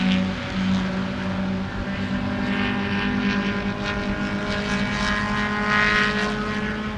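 Chevrolet Camaro SS's V8 engine running hard at high revs through an autocross course, a steady engine note with a brief dip just after the start and small rises and falls in pitch.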